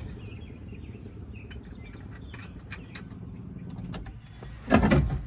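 Faint bird chirps over a low steady rumble, broken near the end by a short loud burst of noise.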